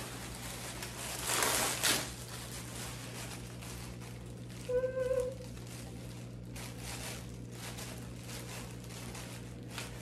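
Thin plastic packaging bag crinkling in irregular bursts as a new hair dryer brush is pulled out and its cord untied, loudest about a second and a half in.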